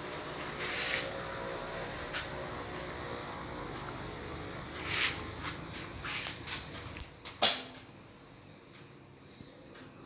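Handling noises: scrapes, rustles and scattered clicks, with one sharp click about seven seconds in, after which it goes quiet.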